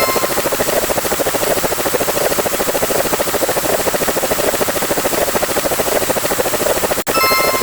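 Looped sound effect of a steady, rapid fluttering whir, like a rotor. About seven seconds in it cuts out for an instant and restarts with a short pitched chime.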